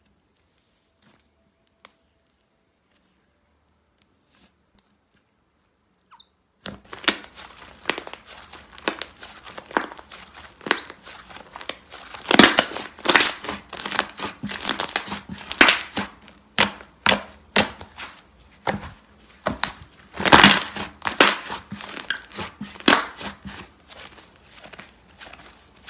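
Slime being pressed and squished by hand, making a dense, irregular crackle of small clicks and pops with louder clusters. It starts abruptly about six seconds in, after near silence.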